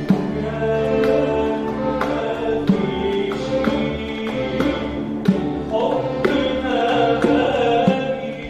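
Live Arabic music ensemble playing a sustained melodic passage, with drum strikes landing every second or two.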